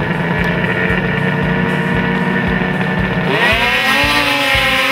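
Several snowmobile engines running steadily at the start line, then revving hard together about three seconds in, the pitch climbing sharply and holding high as the sleds launch off the bank onto the water.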